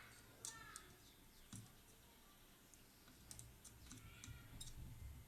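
Near silence broken by a few faint, sharp clicks and light taps of small tools during soldering work.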